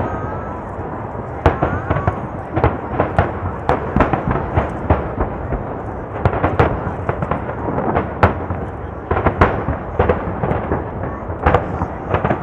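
Aerial fireworks bursting in quick succession, about two to three sharp bangs a second over a continuous rumble of overlapping, echoing explosions.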